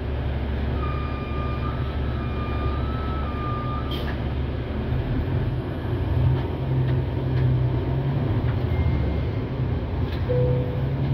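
Cabin noise inside a NABI 416 transit bus: the diesel drivetrain drone and road rumble of the bus under way, growing louder about six seconds in. A thin high-pitched whine comes and goes during the first few seconds, and there is a single click about four seconds in.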